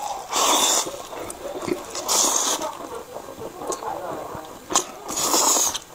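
Person slurping fried noodles in sauce into the mouth: three long, hissing slurps, one right at the start, one about two seconds in and one near the end, with wet chewing in between.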